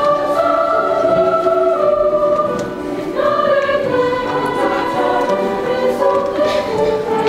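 Large mixed high school choir singing held chords in harmony, with a brief dip in loudness at a phrase break about two and a half seconds in before the voices come back in.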